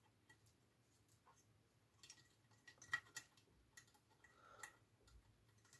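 Faint small clicks and taps of hard plastic parts being handled as a 3D-printed motor bracket is fitted over two small electric motors, with a cluster of sharper clicks about two to three seconds in.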